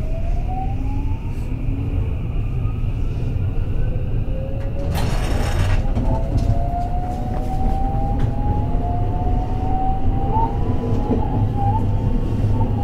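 223 series electric train heard from aboard, its motor and inverter whine rising steadily in pitch as the train accelerates, over a constant rumble of wheels on rail. A short hiss comes about five seconds in.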